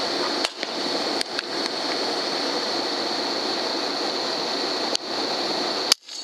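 Steady loud hiss with a constant high-pitched whine over it, broken by a few brief clicks and dropouts about half a second in, just after a second, at about five seconds and near the end.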